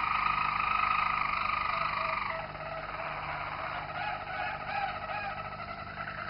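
Roller canary singing its rolling tours with the beak nearly closed: a steady, continuous roll, which changes about two seconds in to a tour of short, repeated rising-and-falling notes.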